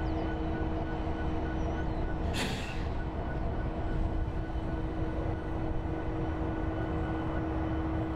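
Union Pacific diesel locomotives idling with a steady hum and low rumble, broken by a short hiss of released air about two and a half seconds in.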